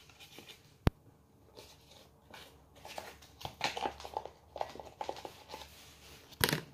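Paper sachet of Swiss Miss hot cocoa mix being torn open and its powder shaken into a mug: crinkling and rustling of the packet, with a sharp click about a second in and a short, louder thump near the end.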